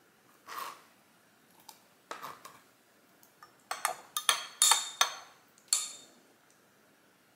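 Metal spoon clinking and scraping against the inside of a glass Pyrex measuring cup while stirring diced strawberries into liquid jelly. The clinks come in a quick ringing run in the second half, after a few softer knocks.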